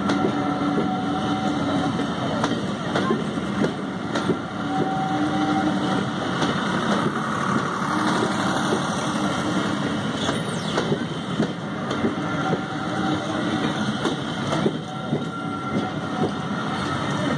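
Railway passenger coaches rolling past close by. Their wheels make a steady rumble with frequent sharp clicks and clatters over the rail joints and pointwork.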